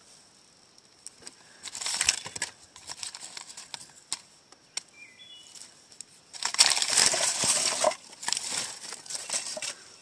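A hand rummaging through dry wood chips and crumbled birch debris, sifting for spent lead bullets. It makes two bursts of rustling and crackling, one about two seconds in and a longer one just past the middle, with scattered small clicks between them.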